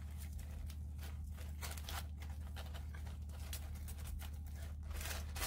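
A steady low hum under faint, scattered rustles and clicks of a small package being opened by hand.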